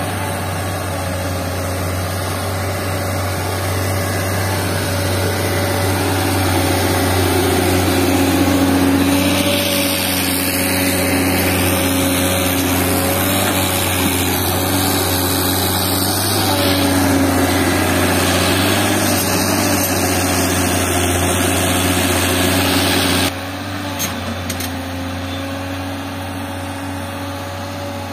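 Diesel engines of a Tata Hitachi excavator working and a tractor waiting beside it, a steady running hum that swells a little in the middle and drops suddenly about 23 seconds in.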